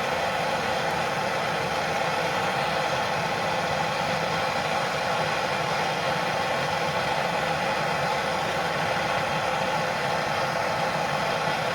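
Handheld soldering torch burning steadily, a constant rushing hiss of flame, as it heats a brass PEX fitting to soften the plastic pipe under its crimp ring.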